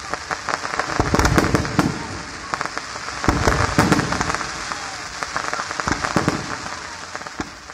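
Aerial fireworks bursting overhead: loud bangs at about one second, just after three seconds and near six seconds, each set off by a dense spray of sharp crackling pops, dying away near the end.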